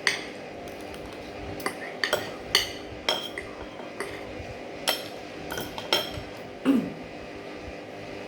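Cutlery clinking against a plate while eating: about nine sharp clinks at uneven intervals over a steady faint hum.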